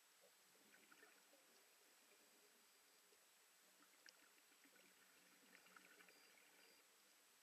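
Near silence: a faint steady hiss with a few soft scattered crackles.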